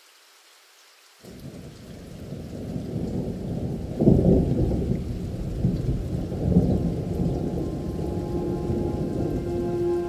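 Rain and thunder sounds opening a background music track: steady rain starts about a second in and builds, with a rumble of thunder swelling about four seconds in. Sustained instrument tones come in near the end.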